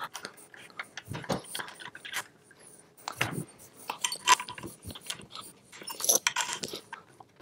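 Irregular clicks, taps and rattles of hands working with tools and small metal parts on the aluminium frame of a Creality CR-10 3D printer during assembly.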